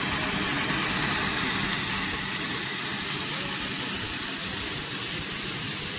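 Corn puff snack extrusion line running: a steady mechanical hum and hiss of the machinery, with a faint steady high whine.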